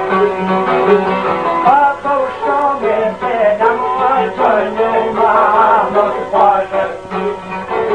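Albanian folk music on plucked long-necked lutes (çifteli), with a steady drone under a wavering, ornamented melody line.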